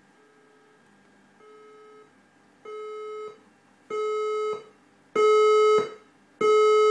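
Recording of a fire alarm voice-evacuation system's alert tone: a steady-pitched beep about half a second long, repeating a little less than once a second, six times, each beep louder than the last.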